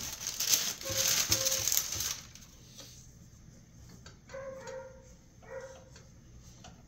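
Parchment paper crinkling and rustling as it is spread over a metal baking sheet, loudest in the first two seconds. A dog barks faintly outside, twice in the second half.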